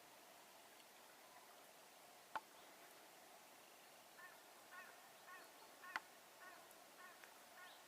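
A run of short, soft calls from a mallard, about two a second, starting about halfway through over a near-silent background. Two sharp clicks, the loudest sounds, come about a third of the way in and again about three quarters in.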